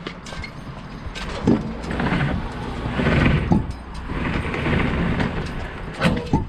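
A pickup truck's retractable slatted tonneau cover is pulled shut along the bed rails, rattling in two long stretches. There is a knock about a second and a half in and a clack near the end as it closes.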